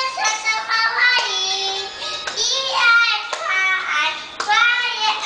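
A toddler girl singing a song in a high child's voice, in short phrases.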